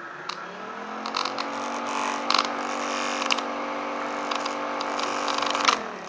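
Small homemade air raid siren, its rotor spun by the 120-volt motor of a Rainbow cleaning system, winding up to a steady wail of several tones and winding down about a second before the end. Rushing air and scattered clicks run over the wail.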